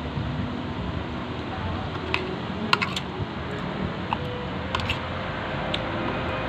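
Cutlery clicking against a plate while eating: a handful of light, sharp clicks, several in quick pairs, over a steady background hum.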